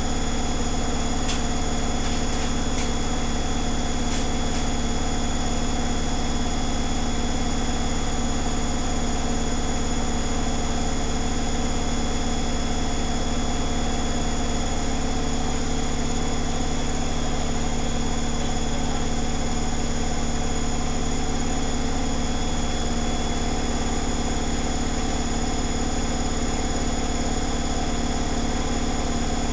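Zanussi Flexi Dose ZWG7160P washing machine spinning an unbalanced load at about 1000 rpm, a steady hum. A few short, sharp crackles come in the first few seconds; this crackling appears only on the unbalanced spin, and the owner can't tell whether it is electrical or mechanical.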